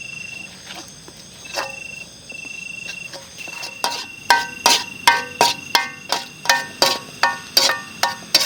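Crickets chirping in a steady high trill. From about four seconds in, a metal utensil clinks against a cooking pan in an even stirring rhythm, about three ringing strikes a second, as spice paste is stir-fried.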